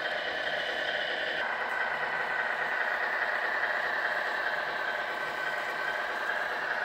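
1:14 scale RC concrete mixer truck running with a steady mechanical whine as its drum turns and discharges wet concrete down the chute. One layer of the sound cuts off about a second and a half in.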